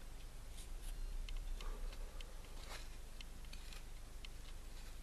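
Stainless-steel Mora Bushcraft Force knife shaving thin curls from a dry, hard wooden stick to make a feather stick: a run of small, irregular clicks with a couple of longer scrapes near the middle.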